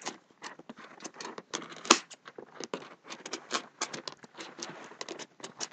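Scissors cutting through the packing tape and cardboard of a parcel box: a run of irregular snips, clicks and scrapes, with one louder snap about two seconds in.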